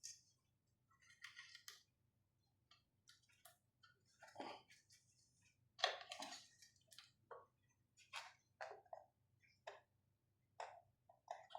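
Faint, irregular clicks and light taps of small hard parts being handled on an opened ventilator, with one sharper knock about six seconds in.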